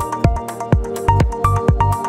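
Electronic background music with a steady beat, about two beats a second, and a short repeating melody.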